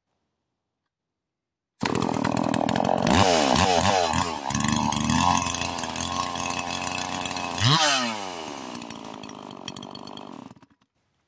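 Freshly built big-bore Stihl 044 (MS 440) two-stroke chainsaw, test-run after the build and judged by the builder to run okay. It starts about two seconds in and blips the throttle several times. It then runs steadily at high revs, revs once more near eight seconds and drops back, getting quieter until it cuts off. The phone recording makes it sound muffled, as if under water.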